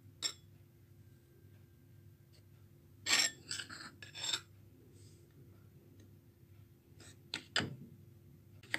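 A steel spoon scraping and clinking against the bowls as it scoops flour from a steel bowl into a ceramic bowl of ghee. The sounds come in a few short bursts: once just after the start, a run of scrapes around three to four seconds in, and a couple of knocks near the end.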